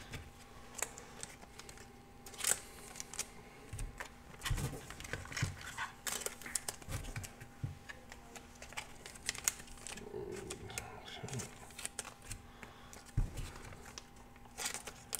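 Trading cards handled and slid into thin plastic card sleeves: irregular soft rustling and crinkling with light clicks and a few dull taps.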